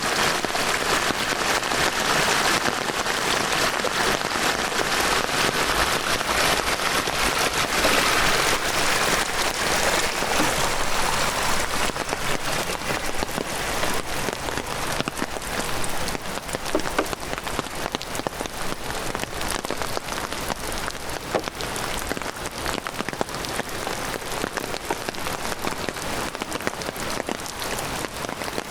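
Heavy rain pouring down: a dense, steady hiss with many individual drops pattering, a little louder in the first third.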